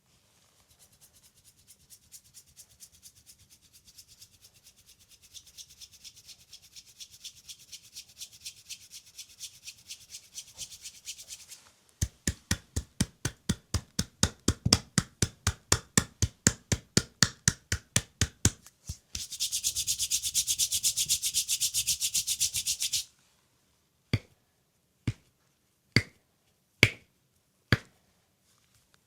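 Hands working bare skin in a leg massage. First comes a long run of fast, light rubbing strokes that grow louder. Then loud rhythmic slapping strikes at about four a second, then a few seconds of fast, continuous rubbing. It ends with five sharp single slaps about a second apart.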